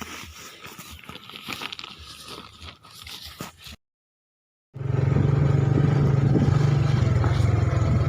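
Rustling and scraping handling noise, then, after a sudden cut, a small engine running loudly and steadily with a fast, even pulse.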